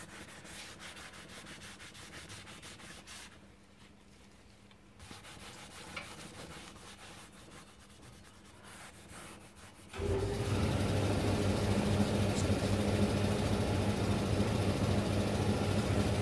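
Cloth rag rubbing over a new brake disc, wiping off its protective wax coating. About ten seconds in, a much louder, steady engine-like running sound with a low hum starts suddenly and carries on.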